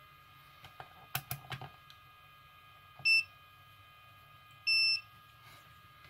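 A handful of quick clicks, then two high electronic beeps from a digital multimeter, a short one about three seconds in and a longer one near five seconds, as the meter is readied to check a capacitor for a short.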